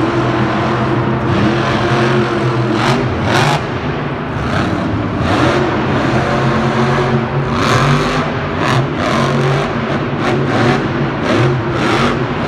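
Monster truck engine revving hard as the truck drives and wheelies across the dirt arena floor, its pitch rising and falling with the throttle, with repeated short bursts of noise every second or two.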